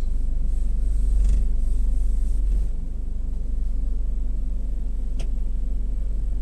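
Gas-station car wash running with a steady low rumble. A rush of hissing noise swells and fades in the first few seconds, and a single sharp click comes about five seconds in.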